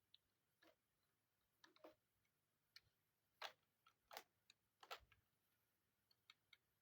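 Faint, irregular clicks and light taps of plastic and metal computer parts and small tools being handled during disassembly of an all-in-one PC, about a dozen in all, the loudest in the middle.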